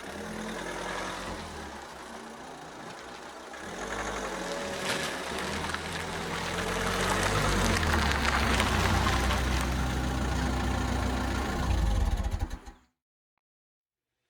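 Car engine running through its exhaust, then revving up from about four seconds in and held at higher revs, with a few sharp exhaust cracks around five seconds. The sound cuts off abruptly near the end, leaving silence.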